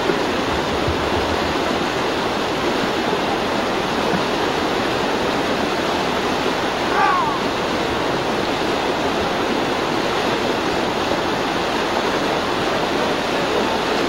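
Fast mountain river rushing over rocks, a steady noise of whitewater.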